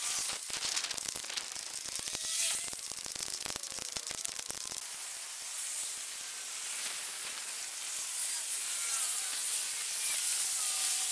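Steady hiss of time-lapse-compressed roadside ambience, traffic and wind on a moving camera, with dense crackling that stops about five seconds in and faint short chirps.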